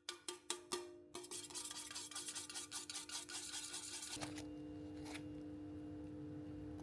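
Kitchen utensil working pancake batter in a bowl, likely a whisk: a few quick taps, then about three seconds of fast, rhythmic scraping.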